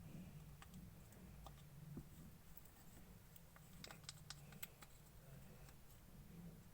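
Clear slime being worked by hand, giving faint sticky clicks and small pops, with a quick cluster of them about four seconds in.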